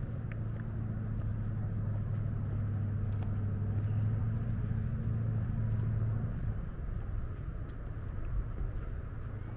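A steady low engine hum, which stops about six and a half seconds in.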